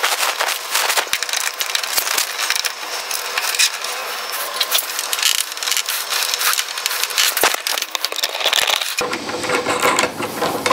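Dense crackling and many small clicks of hands working plastic windscreen fixing parts into place. About nine seconds in, the noise turns fuller and lower.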